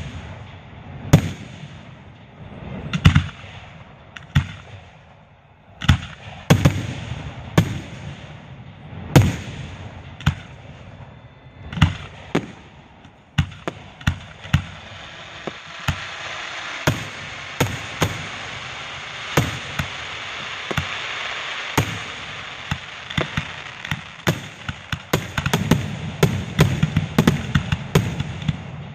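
Fireworks going off: aerial shells bursting with sharp bangs every second or two. A steady hiss runs through the middle, and a fast volley of bangs comes near the end.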